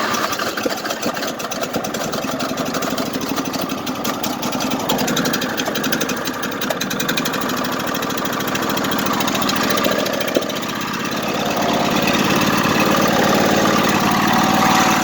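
1998 Craftsman LT1000 lawn tractor engine running just after catching from a hard start. It runs unevenly at first and settles into a steadier run about twelve seconds in.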